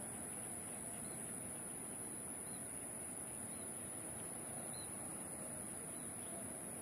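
Outdoor evening ambience beside the railway line: a steady background hiss and rumble with a continuous high-pitched drone, and faint short chirps about once a second.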